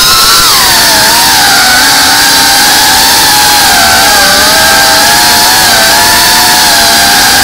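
FPV quadcopter's electric motors and propellers whining loudly, heard from the drone's onboard camera. The pitch rises and falls with the throttle, dipping about a second in and again around four seconds, then climbing near the end.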